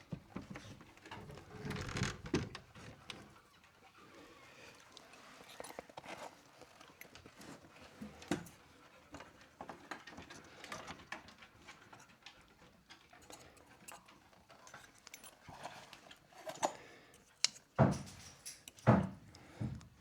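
Hands-on building work: scattered taps, clicks and light knocks of tools and materials being handled, with a few heavier thumps near the end.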